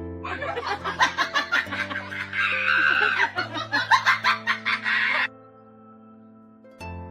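A bird squawking and clucking in a rapid series of calls for about five seconds, over soft background music. The calls stop abruptly about five seconds in.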